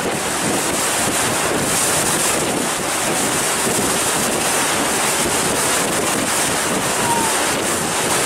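Steady wind buffeting the microphone over the rush of water from a moving harbour ferry.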